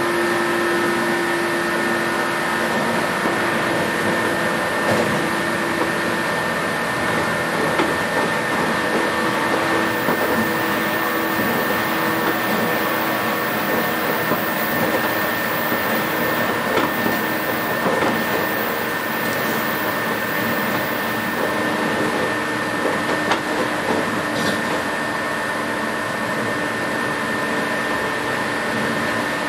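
Inside a JNR 117 series electric train running at a steady speed: a steady whir of traction motors and running gear over wheel and rail noise, with a steady high whine and a few faint clicks.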